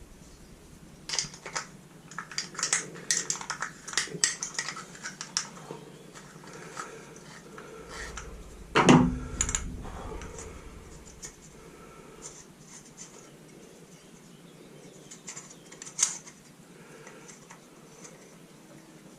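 Hand work on a leaf blower's recoil starter: quick clicks, taps and light clatter of small plastic and metal parts, with a louder knock about nine seconds in and another near sixteen seconds.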